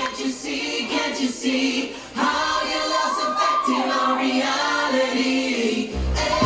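Recorded pop music with layered singing voices and the bass dropped out; the bass comes back in near the end.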